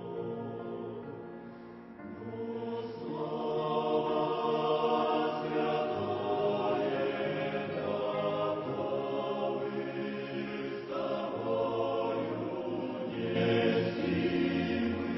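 Choir singing a slow hymn in long held chords, the phrases swelling and fading.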